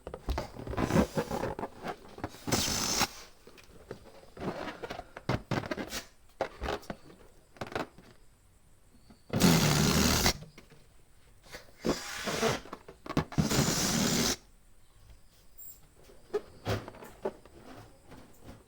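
Balloon pump working in strokes: repeated bursts of rushing air, each about a second long, with smaller rustling and handling sounds between them.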